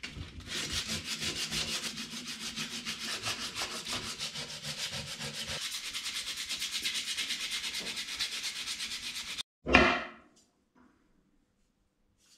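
80-grit sandpaper on a hand sanding block rubbed quickly back and forth over body-filler repairs on a 1951 Chevrolet steering wheel rim, an even rasping with several strokes a second. It cuts off suddenly about nine seconds in, followed by a single knock and then near silence.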